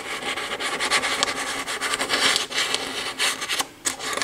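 Scraping and rubbing as something thin is run around the voice coil gap of an Altec Lansing Valencia woofer to clear out debris, with a short pause near the end.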